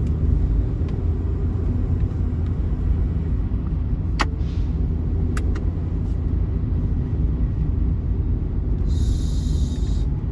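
Steady low rumble of a bus running at highway speed, engine and road noise heard from on board. A couple of sharp clicks come about four and five seconds in, and a short hiss of air comes near the end.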